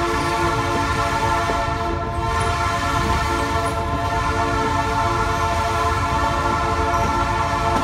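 Passenger train in motion: a rumble of the wheels under a steady, ringing chord of several high tones.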